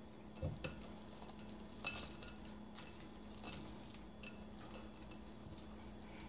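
Spatula stirring chocolate chips into thick cookie dough in a glass mixing bowl: irregular soft clicks and scrapes against the glass, loudest about two seconds in.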